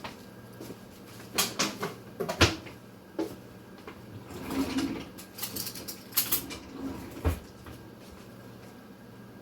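Scattered knocks and clicks of kitchen utensils and containers being handled and set down, with short scuffing sounds between them.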